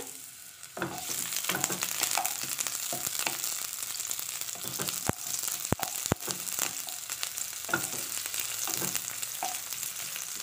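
Sliced onion sizzling in hot refined oil in a kadai, starting about a second in, while a wooden spatula stirs and scrapes it. A few sharp knocks come about halfway through.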